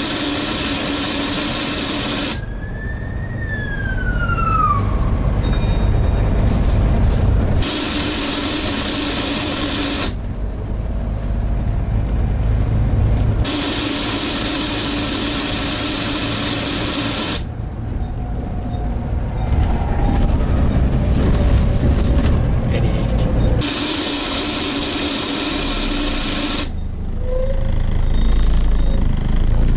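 Very loud suction noise on a Volvo B7TL double-decker bus: a loud rushing hiss that comes in four bursts of a few seconds each, with the diesel running between them. The bus is poorly maintained, and the noise points to a fault that nobody on board has traced.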